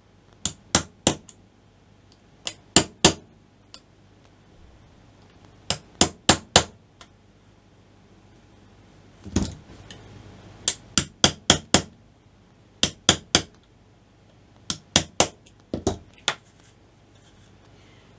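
Sharp metallic taps in quick groups of three to five, a group every couple of seconds: pliers tapping a flat scalpel blade into the melted-shut plastic seam at the top of a 9V lithium-ion battery to split it open.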